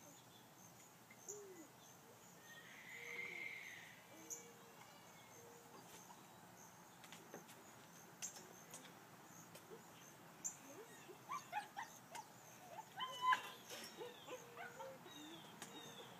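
Bernese mountain dog whimpering and whining faintly, with a few short high whines early on that build in the last third into a quick string of high whimpers and yips. A few light clicks are mixed in.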